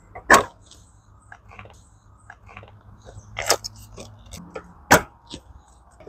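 Handling noise from a roof-mounted car awning and its pole: scattered clicks and rustles, with three sharp knocks, about a third of a second in, around three and a half seconds in and just before five seconds.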